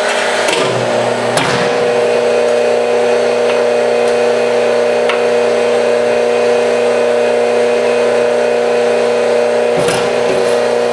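Hydraulic forging press running with a steady, loud pump-and-motor hum while it cuts into a glowing steel block. A few short noisy strokes come near the start and again near the end.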